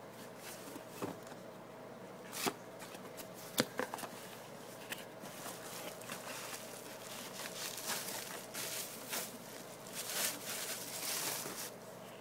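Unboxing handling noise: a cardboard box with cardboard inserts and plastic-wrapped grinders being handled, with a few sharp taps and knocks in the first four seconds, then a longer stretch of rustling and crinkling, over a faint steady hum.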